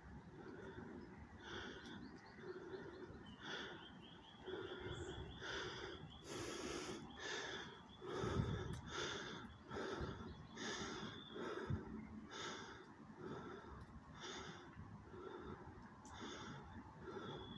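A person panting heavily close to the microphone, out of breath from running, with a quick noisy breath about every half second.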